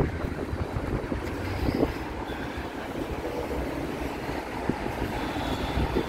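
Wind buffeting the microphone: an uneven low rumble, with a few light knocks scattered through it.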